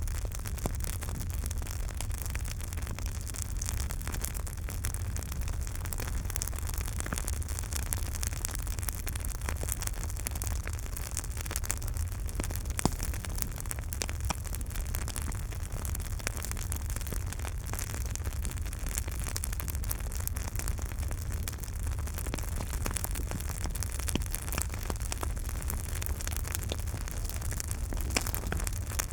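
Campfire burning, with dense crackling and popping over a steady low rumble. One louder pop comes near the middle.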